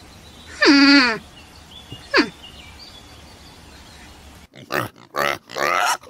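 Pigs grunting in a quick run of short, rough grunts in the last second and a half. Earlier there is a single loud pitched animal call that falls and then levels off, and a brief sharp falling squeak.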